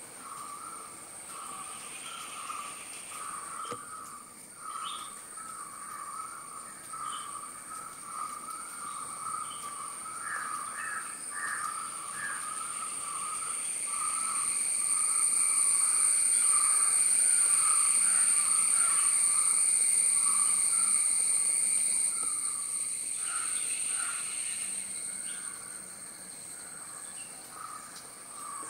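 Outdoor ambience: a steady, high-pitched insect drone that swells louder through the middle, over a run of rapid, repeated bird calls.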